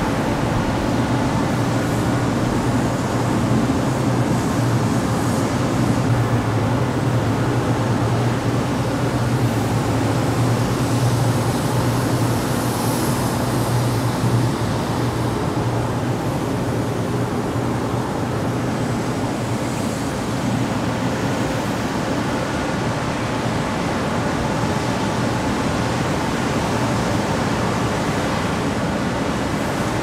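Industrial exhaust fan running steadily: an even rush of moving air over a constant low hum.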